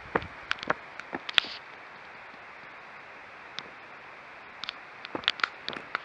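Footsteps and small handling taps from someone walking with a handheld camera: sharp irregular clicks bunched in the first second and a half and again near the end, over a steady hiss.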